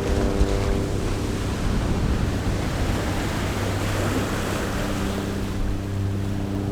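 A rushing noise, like surf or wind, that swells toward the middle and fades about five and a half seconds in, over background music with steady held tones.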